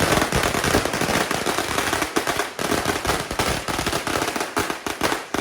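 A string of firecrackers going off in a rapid, unbroken crackle of sharp bangs.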